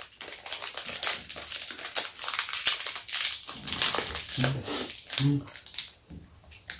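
Plastic ice cream sandwich wrappers crinkling and rustling as they are peeled open. Two short vocal sounds come about four and five seconds in.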